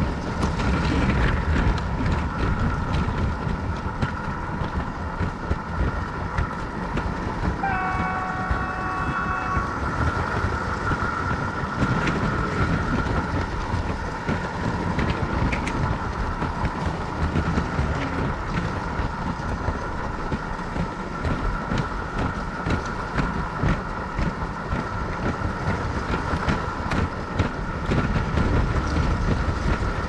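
LEGO train running on its track with a steady rumble and frequent clicks, under an engine sound effect played by the pushing locomotive's PFX Brick sound module. About eight seconds in, the PFX Brick sounds a horn for about two seconds.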